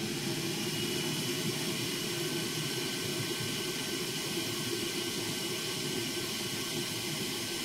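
Quick TR1300A hot air station's handpiece blower running steadily: a fairly quiet rush of hot air with a faint steady whine under it.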